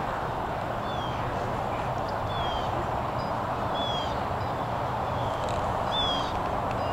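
A bird repeating a short, high, falling whistle about every second and a half, over a steady background hiss.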